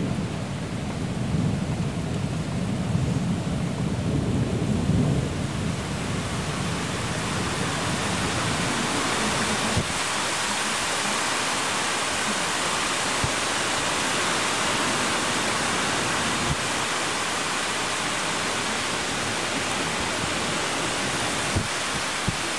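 Thunder rumbling for the first few seconds and fading, then heavy rain of a cloudburst hissing steadily, with a few faint ticks.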